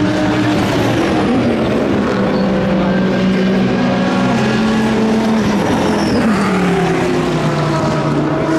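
Racing car engines running loud and steady, their pitch sliding as they rev, with one note falling in pitch about five to six seconds in.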